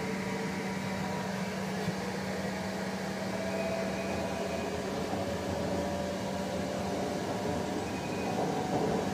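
Small computer-style exhaust fans behind a ceiling vent in a Shinkansen train restroom, running with a steady hum over a hiss of moving air.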